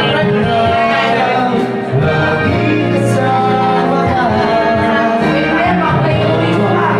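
A man singing karaoke into a handheld microphone over a loud backing track.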